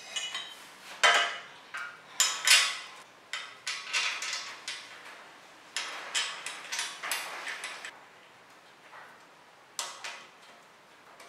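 Handlebar being worked into an alloy bicycle stem's clamp: irregular metallic clicks, knocks and scrapes, thickest over the first eight seconds. A tool then engages the clamp bolt, with a single sharp knock near the end.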